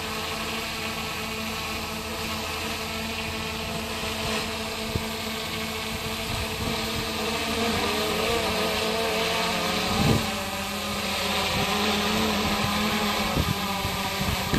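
Steady hum of a running engine, several even tones over a rushing background, with wind gusts hitting the microphone about ten seconds in and again near the end.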